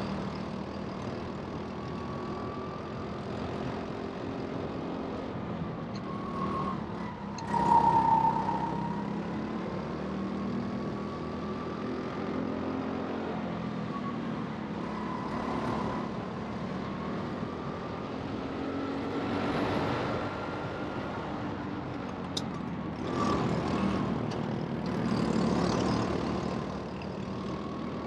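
Rental race kart's motor running continuously at racing speed, its whine rising and falling as the kart speeds up and slows through the corners. There are several louder swells, the loudest about eight seconds in, with others around twenty and twenty-five seconds.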